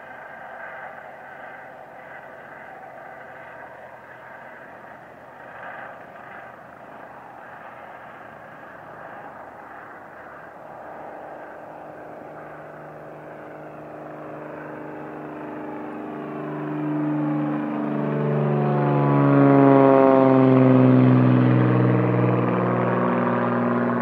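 Beechcraft airplane taking off and climbing out overhead. Its engine is faint at first, grows steadily louder over the second half, and peaks as it passes overhead, its pitch falling as it goes by.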